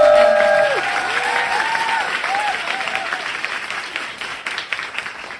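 Audience applauding and cheering, with held whoops in the first second; the clapping slowly dies away toward the end.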